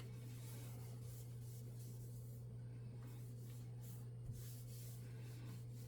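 Cloth wiping baby oil over stainless steel, a faint uneven rubbing, over a steady low hum, with one soft knock about four seconds in.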